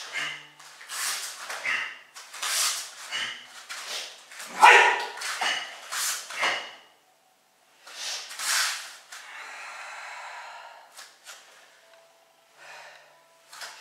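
Karate gi snapping and whooshing with each quick punch, block and turn of the Heian Yondan kata, with one loud sharp shout, a kiai, about four and a half seconds in.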